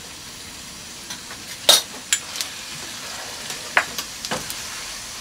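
Cumin seeds sizzling in hot ghee in a stainless steel pan, a steady frying hiss as the seeds begin to splutter, with a few short sharp clicks over it.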